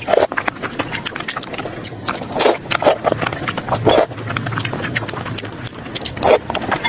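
Close-miked eating sounds: chewing and wet mouth smacks with many irregular sharp clicks, a few louder smacks standing out about two and a half, four and six seconds in.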